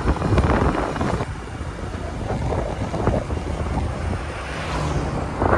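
Wind buffeting the microphone of a moving motorcycle, with the bike's engine running underneath. Near the end an oncoming van goes past.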